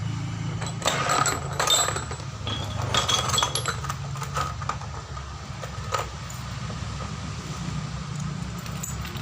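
Small metal parts of a car air-conditioning compressor clinking and rattling as they are handled. The clinks come in a cluster over the first few seconds, with a single click about six seconds in, over a steady low hum.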